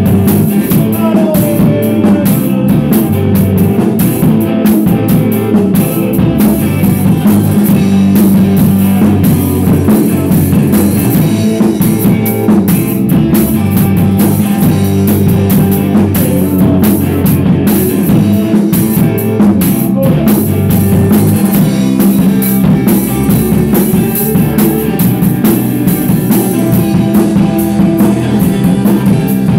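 Rock band playing a song together, with drum kit and guitar, loud and steady throughout.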